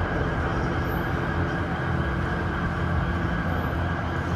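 A steady low rumbling din with a faint hum underneath, even in level throughout.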